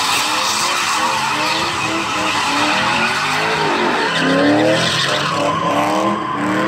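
All-stock 2002 Chevy Silverado 1500's 4.8-litre V8 revving hard as it spins donuts, its pitch climbing again and again, over the hiss of the rear tyres spinning on wet pavement.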